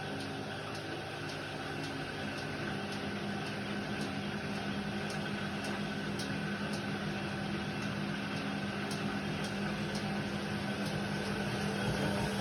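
Indesit WIDL 106 washer-dryer running, a steady motor hum with faint scattered ticks.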